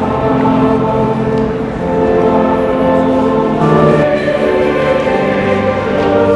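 A choir singing slow sacred choral music in long, sustained chords that change every second or two.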